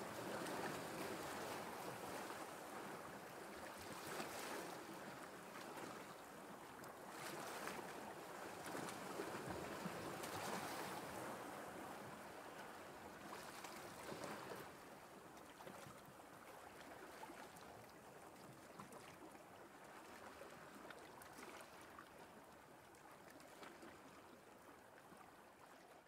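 Small waves breaking and washing over a shingle beach in a steady rush, softer from about halfway.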